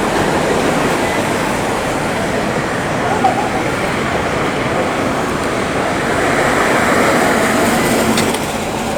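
City street traffic noise: a steady wash of passing vehicles, swelling for a couple of seconds toward the end.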